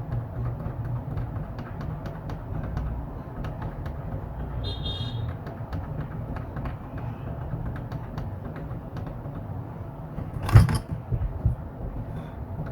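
Street traffic rumbling steadily, with a short vehicle horn toot about four and a half seconds in, scattered small clicks, and one loud sudden sound near the end.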